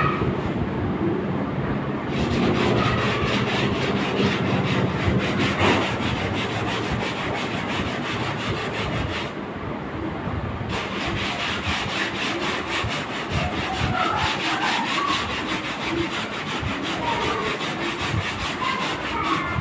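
Hand scrubbing of a sofa's fabric upholstery through cleaning foam: quick, steady back-and-forth rubbing strokes, pausing briefly about halfway through.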